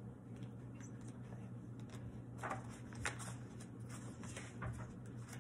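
Pages of a picture book being leafed through by hand: a few short, faint paper rustles and flicks in the second half, over a low steady hum.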